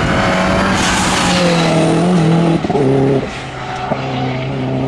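Ford Focus RS Mk1 rally car's engine pulling hard at high revs through tight bends, its pitch rising and falling with throttle and gear changes, dropping sharply about two and a half seconds in before it settles into a lower, steady note. A burst of rushing hiss about a second in, likely tyre scrub.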